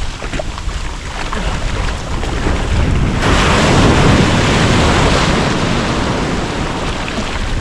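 Sea surf breaking and washing through the shallows. About three seconds in, a wave crashes over close by with a sudden louder rush of splashing water, which then slowly dies away.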